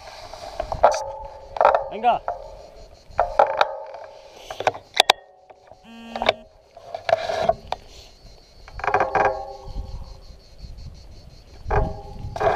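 Mountain bike rolling downhill on a gravel track: tyres crunching over loose stones and the bike rattling, with a fast freewheel ticking and short squealing tones that come and go.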